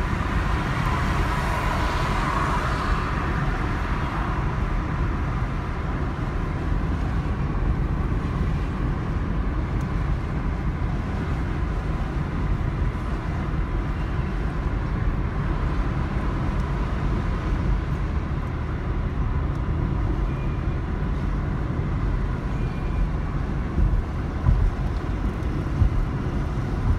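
Steady road and engine rumble inside a moving car's cabin, with a few brief louder bumps near the end.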